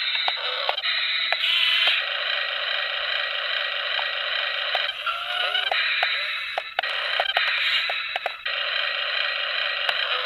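Small electric gear motors of an RC toy excavator whirring steadily, dipping briefly a couple of times, with scattered clicks.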